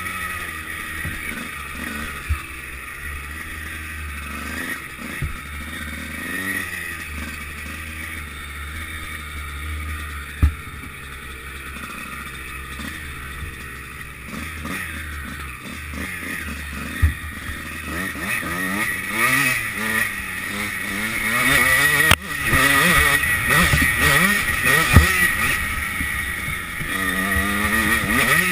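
Motocross dirt bike engine revving up and down as it is ridden, the pitch rising and falling through the gears, louder and revving harder in the last third. A few sharp knocks are heard along the way.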